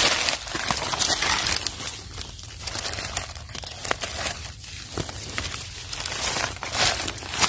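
Dry fallen leaves crackling and rustling irregularly as someone moves through the leaf litter, with a few sharp clicks.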